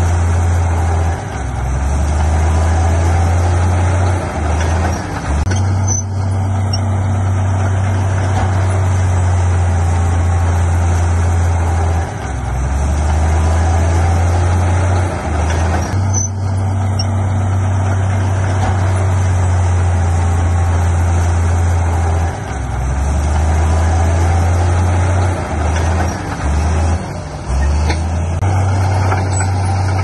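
Diesel engine of heavy earthmoving machinery running loudly, its low drone dropping off briefly and coming back every few seconds as the load changes. Two short sharp sounds come about ten seconds apart.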